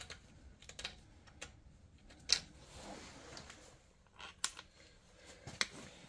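Irregular light clicks and taps of small bolts and screws being handled against a machine's sheet-metal panel, about half a dozen in all, the sharpest a little over two seconds in.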